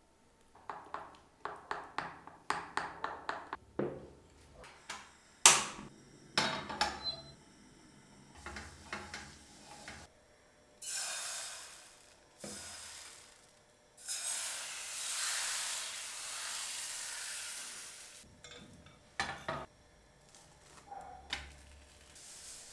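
Utensil clinking and knocking against a pan, with a quick run of clicks near the start, then two stretches of sizzling, the longer one lasting about four seconds.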